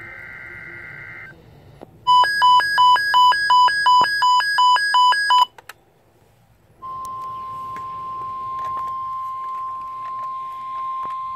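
The last of an EAS SAME header's two-tone data bursts, a shrill warble, then loud rapid electronic beeping at about three beeps a second for around three seconds. After a short silence, the steady 1050 Hz NOAA Weather Radio alert tone starts and holds, the attention signal that comes before the spoken alert.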